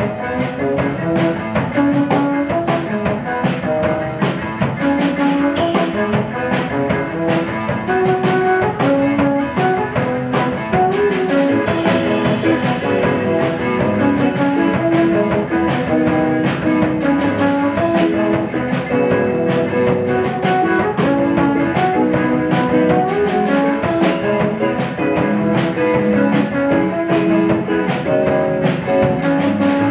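Live jazz quartet of drums, trombone, electric guitar and six-string bass playing a tune, with the drums keeping a steady beat under the melody.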